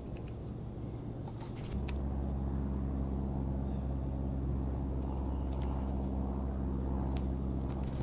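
A steady low hum, like a motor running, that gets louder about two seconds in, with a few sharp clicks and crunches over it.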